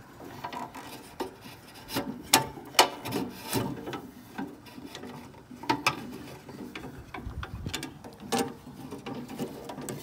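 Irregular scraping and rubbing of metal parts, with several sharp clicks, from hand work on the lugs of an electrical meter base socket. The loudest clicks come a couple of seconds in.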